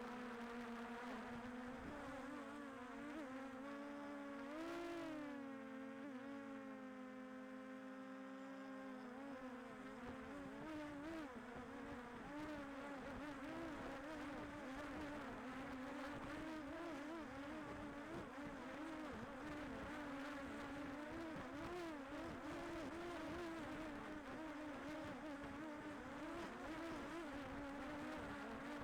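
Quadcopter drone's propellers whining with a steady buzzing hum. The pitch rises briefly about five seconds in, then wavers up and down through the rest, as the drone adjusts its speed.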